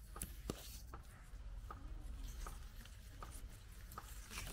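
Faint handling sounds: a few light, irregular clicks and rustles as a hand turns a plastic flowerpot of Kinryouhen orchid, its leaves brushing past.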